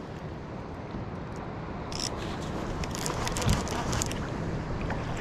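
Steady hiss of wind and water around a fishing kayak, with a run of light clicks and scrapes from about two seconds in.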